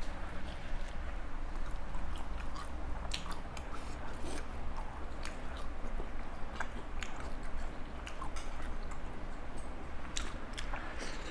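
Close-miked mouth sounds of a person chewing and biting into spicy Thai seafood salad with raw vegetables, with irregular small crunches and wet clicks, over a steady low hum.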